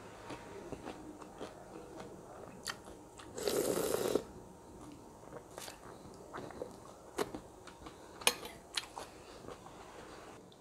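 Close-miked chewing of asinan Bogor, raw bean sprouts, cabbage and crackers in sauce, with scattered crisp crunches. There is one louder, longer burst about three and a half seconds in.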